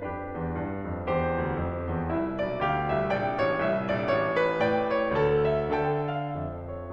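Background music led by piano-like keyboard notes over a sustained low bass.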